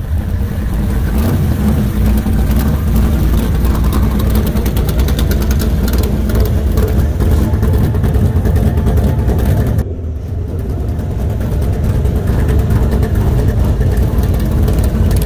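A motor vehicle's engine running under way, with steady engine and road noise. It drops briefly about ten seconds in, then builds back up.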